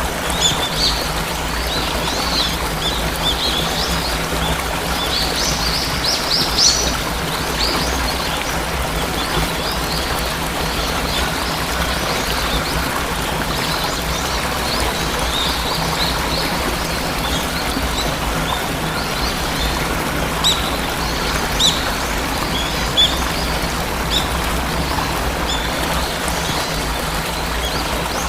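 Steady rush of falling water from a waterfall, with small birds chirping and twittering over it; the chirps are busiest in the first few seconds and again after the middle.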